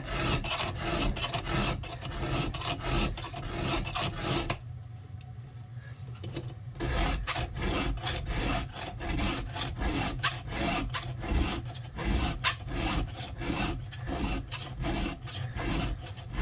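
A hand file rasping across the cutting teeth of a chainsaw chain in quick, repeated strokes. It is sharpening teeth blunted and gouged by hitting a rock or a nail. The strokes turn lighter for about two seconds a little before the middle, then pick up again.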